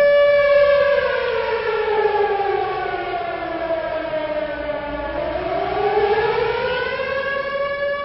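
Civil defense siren sounding the memorial signal for a moment of silence. It holds a steady tone, sinks slowly in pitch for about four seconds, then climbs back up to the steady tone near the end.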